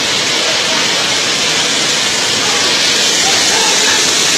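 Loud, steady rushing hiss of water, as of heavy rain or floodwater, unbroken throughout.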